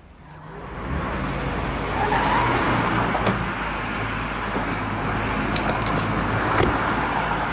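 A car's engine idling with a steady low hum. A few sharp clicks and a knock come from the car door being opened.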